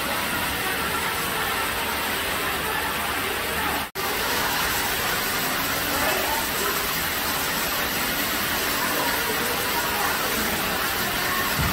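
Steady rushing background noise with indistinct voices, broken by a brief dropout about four seconds in.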